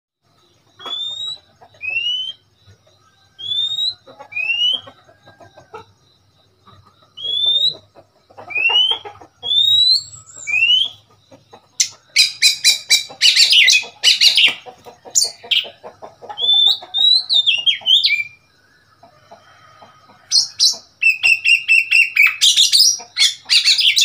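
Oriental magpie-robin singing: single rising whistled notes about a second apart, then from about halfway a loud, fast song of many varied notes in rapid runs.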